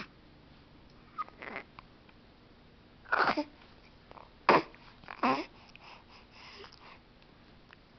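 Young baby making short vocal noises: about five brief squeaks and grunts with pauses between them, the loudest near the middle.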